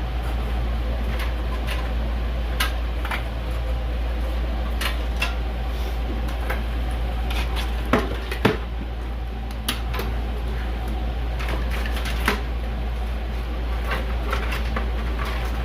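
Scattered small clicks and knocks of computer parts and hardware being handled during a PC case swap, over a steady low hum; two louder knocks come about eight seconds in.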